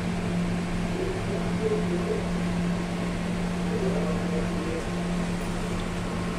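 Steady mechanical hum of a running appliance or fan, with a low drone that holds one pitch.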